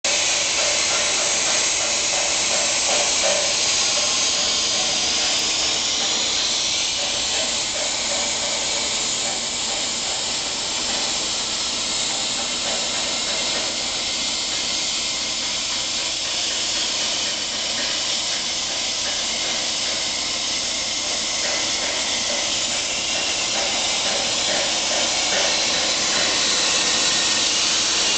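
CNC plasma cutter torch cutting metal plate: the plasma arc gives a loud, steady hiss.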